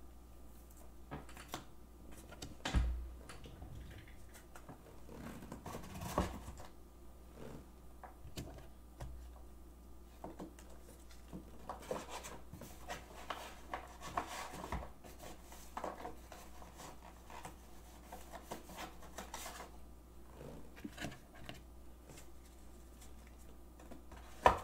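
Scattered handling noises on a desk: rustling, scratching and light clicks and knocks as things are moved about, with louder knocks about three and six seconds in.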